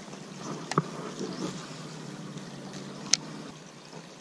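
Steady outdoor background noise with a faint low hum, broken by two sharp clicks, about a second in and about three seconds in.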